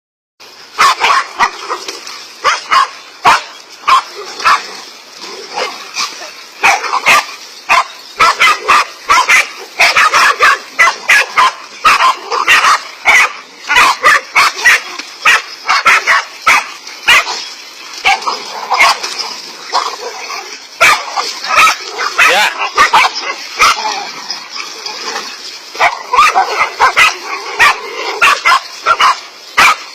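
A group of dogs barking continuously in quick, overlapping barks, several a second, as they confront a snake.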